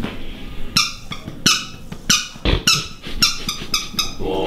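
Rubber squeeze toy squeezed in the hand, giving about six short high-pitched squeaks roughly half a second apart.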